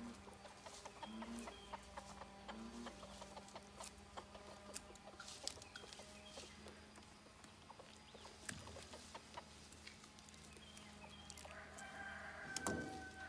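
Chickens clucking faintly, with a longer, louder call near the end, over scattered small clicks and a steady low hum.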